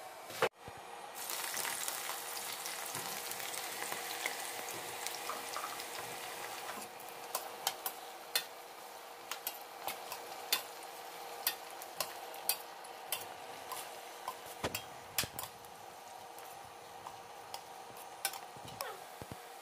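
Chopped raw jackfruit sizzling in hot oil in a stainless steel kadhai: the sizzle starts suddenly about a second in as the pieces meet the oil, then keeps up steadily while a spatula stirs them, with repeated clinks of the spatula against the pan.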